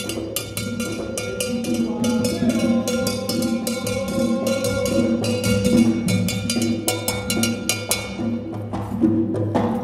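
Percussion music: drums under a fast, even clicking beat like a wood block, about four or five clicks a second, over steady low tones. The clicking drops out near the end.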